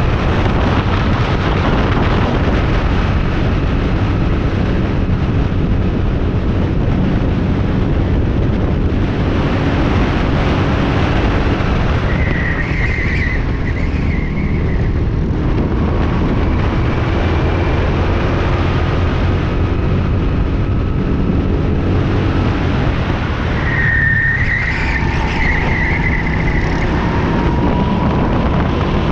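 Go-kart engine running hard at racing speed, heard from the driver's seat amid heavy road and wind rush, its pitch rising and falling with the throttle. Tyres squeal briefly twice through corners, about halfway through and again near the end.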